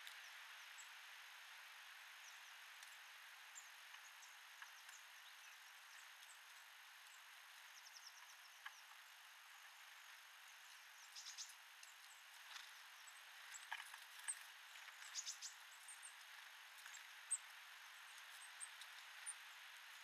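Faint, high-pitched chirps and call notes from small birds at a feeder, scattered and growing busier in the second half, over a steady background hiss, with a few short clicks.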